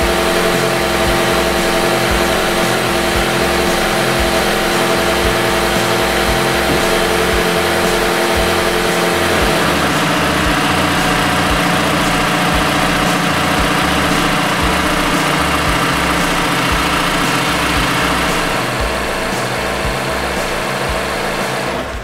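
Mazda CX-5's 2.5-litre SkyActiv four-cylinder engine idling steadily, freshly refilled with oil and warming up to operating temperature; it becomes a little quieter near the end.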